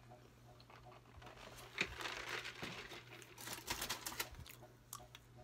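Burrito wrapper crinkling and rustling as the burrito is handled, in irregular bursts that are busiest from about two to four seconds in.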